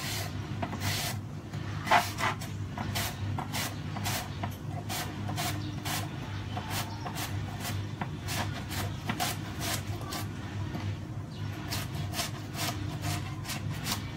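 Cucumber being shredded on a handheld mandoline julienne slicer: repeated rasping strokes of the cucumber over the blade, about two to three a second.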